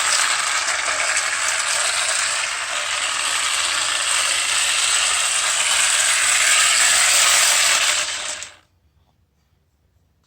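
1960 Lionel toy train locomotive running: a steady, dense whirring and rattling of its motor gears and wheels, which dies away about eight and a half seconds in.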